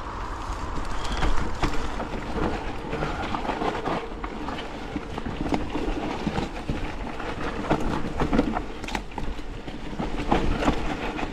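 Forme electric mountain bike riding fast down a rough dirt trail: tyres rumbling over the ground while the chain and frame rattle and clatter with many sharp knocks, with wind noise on the microphone.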